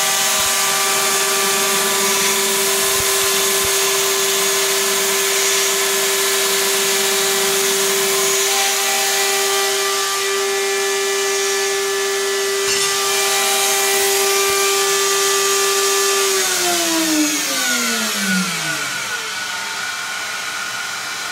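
2x72 belt sander driven by a high-speed spindle motor, running at full speed with a steady whine and hum. About 16 seconds in it is switched off and winds down, the whine falling steadily in pitch as it coasts. The owner puts part of the hum down to the loosely clamped frame resonating.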